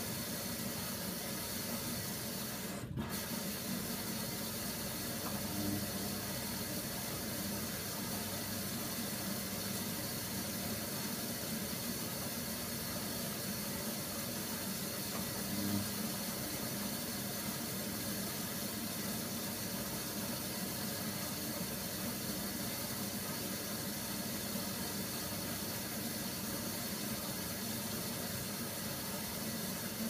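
Hoover Nextra HNWL 7146 front-loading washing machine tumbling a duvet through water in its wash cycle: a steady watery hiss and swish over a low motor hum, with a couple of slightly louder surges about six and sixteen seconds in.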